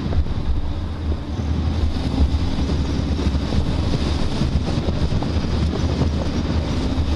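Wind buffeting a microphone mounted on the outside of a slowly moving car, over a steady low rumble of road and engine noise.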